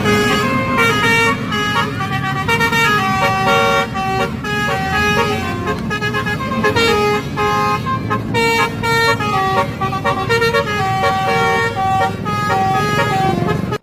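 Basuri musical horn playing a tune, its loud steady notes stepping from pitch to pitch, over the low rumble of vehicle traffic.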